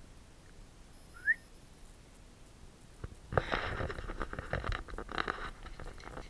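A single short rising whistle-like chirp about a second in, then from about three seconds in crunching footsteps and rustling through snow and dry grass.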